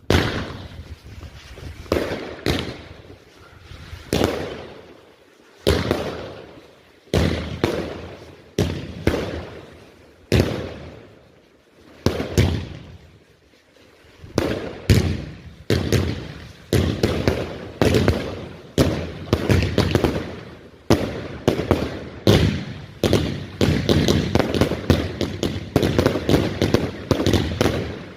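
A 30 mm firework firing a long run of sharp bangs, each trailing off over about a second. At first they come one every second or two; from about halfway they come faster and overlap.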